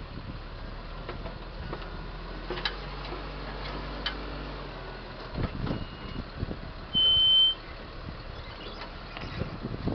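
Tractor engine running while its hydraulic crane arm hauls a plastic tarpaulin off a beet clamp, with crackling and knocking from the sheeting and arm from about five seconds in. A single high electronic beep, about half a second long and the loudest sound, comes about seven seconds in.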